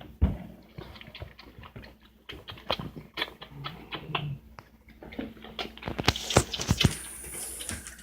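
A sleeping Great Pyrenees dog: many irregular small clicks and patters, with two short low snores near the middle. A higher hiss joins from about six seconds in.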